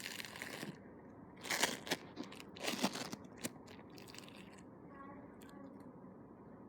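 Very sticky homemade slime being squeezed and pulled by hand: a few short bursts of sound in the first half, then only faint room noise.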